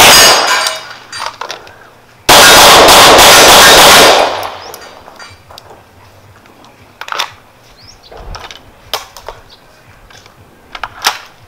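AR-style carbine firing a rapid string of shots so loud that they merge and clip; one string ends just after the start and a second runs from about two to four seconds in. Afterwards come a few light metallic clicks and clanks of weapon handling.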